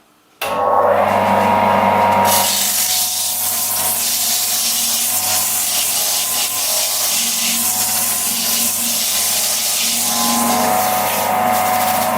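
A woodworking power tool working wood: a steady motor hum under a loud rasping, rubbing noise that starts abruptly about half a second in and keeps on.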